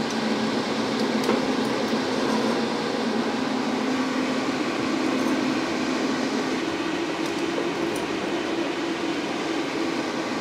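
Ninja dual-basket air fryer's fan running in its cool-down cycle: a steady whir with a low hum. A few faint clicks come from the tin gripper and cake tin.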